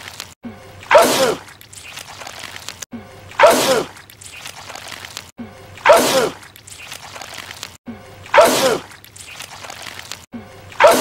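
A man's loud sneeze, the same sneeze looped five times about every two and a half seconds. Each is a sharp 'achoo' whose pitch drops.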